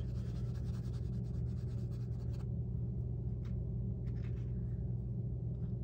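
Soft pastel stick scratching across grey mixed-media paper in quick back-and-forth strokes for about two and a half seconds, then a few single strokes, over a steady low hum.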